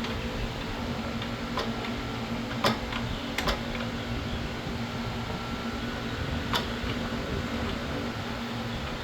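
Craftsman drill press electric motor running steadily with a low hum and a faint high whine, broken by a few sharp clicks, two of them close together.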